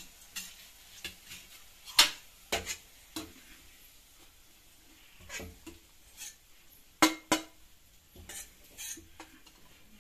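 A spatula scraping and clinking against a stainless steel kadai and a steel plate while fried onions are lifted out of the pan. The clinks come one at a time, sharpest about two seconds in and twice close together around seven seconds in.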